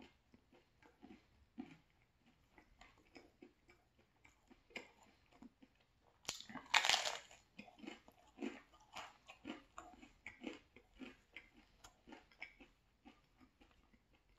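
Close-miked chewing of a mouthful of pesto cheese pizza: wet mouth smacks and small irregular clicks of the crust between the teeth. A louder rushing noise lasts about a second, around six to seven seconds in.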